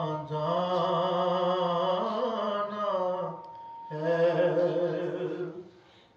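A single voice chants an Urdu devotional salam in long, drawn-out held notes with slow wavering ornaments. One long phrase breaks off about three and a half seconds in, and a second one trails away near the end. A faint steady high tone sits underneath.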